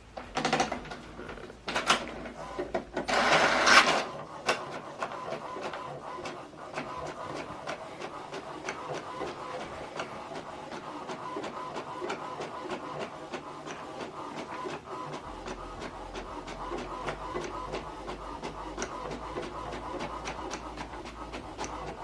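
HP DeskJet 3700-series inkjet printer printing a page. It starts with a burst of louder clunks and whirs in the first four seconds, then runs with a steady stream of regular ticks over a whirring hum as the print head shuttles and the paper advances.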